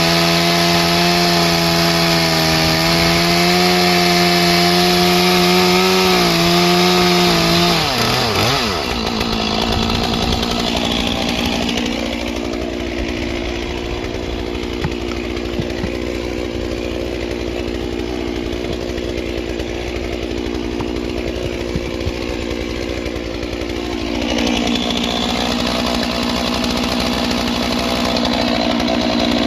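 Stihl MS 461 chainsaw running at high revs. About eight seconds in, the engine note swoops sharply down and the saw goes on running more quietly, picking up a little again near the end.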